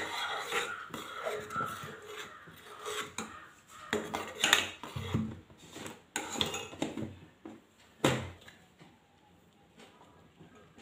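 Steel ladle scraping and clinking against a stainless steel saucepan as a thick milk payasam is stirred, in irregular strokes. It knocks once about eight seconds in and then stops, leaving the ladle in the pot.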